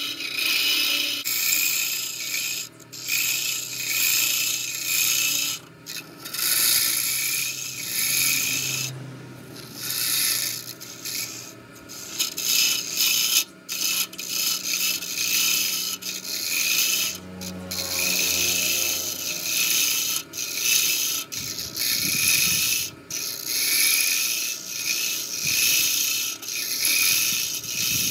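A bent-shaft hollowing tool cutting inside the neck of a wooden vase spinning on a wood lathe: a harsh scraping hiss in repeated passes, broken by short gaps as the tool is eased off and fed in again. The lathe hums steadily underneath.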